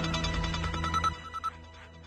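News intro theme music closing out, with short repeated chime-like notes; it drops sharply in level about a second in and trails off quietly.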